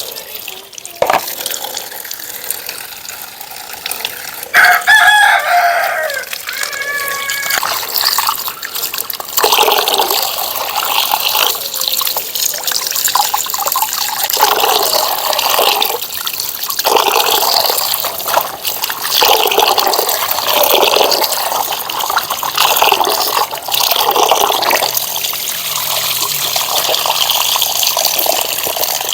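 Water running and splashing, with a rooster crowing once, about five seconds in.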